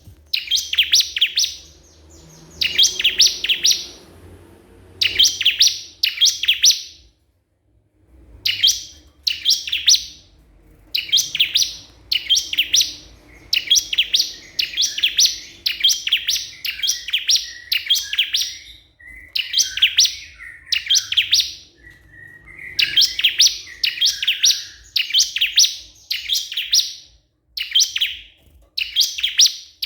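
Ciblek kristal, a small prinia songbird, singing persistently: short bursts of rapid, high, sharp chirps, one every second or two with a brief pause about a third of the way through. It is the loud territorial call that draws rival ciblek to answer.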